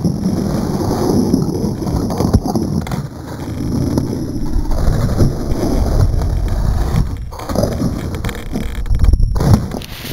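Low rumbling wind and handling noise on an RC plane's onboard camera microphone, with a few knocks and scrapes as the plane sits among pine branches. The loudest knock comes near the end.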